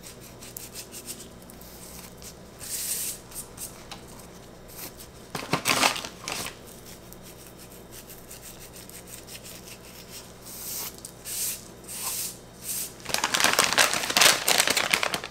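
Clear plastic bag of dried flower petals crinkling in gloved hands, in several short rustles, with a longer, louder run of crinkling near the end.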